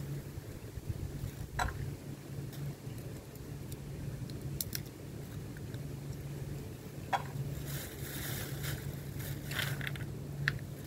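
Walnut shell being picked apart by hand: a few scattered sharp cracks and clicks, with a longer rustle about eight seconds in, over a steady low hum.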